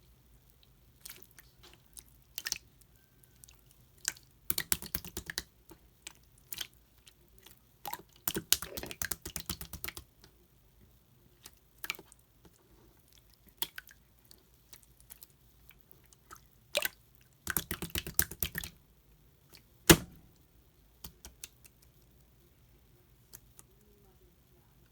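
Several short bursts of rapid, crisp clicking or crunching, each about a second long, with scattered single clicks between them and one sharper knock about twenty seconds in.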